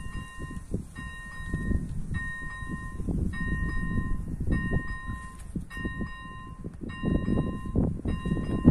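Electronic level-crossing warning bell (AŽD ZV01/ZV02 type) chiming, a multi-tone ding repeated about once every 1.2 seconds, signalling that the crossing is active for an approaching train. An uneven low rumbling noise runs underneath and grows louder near the end.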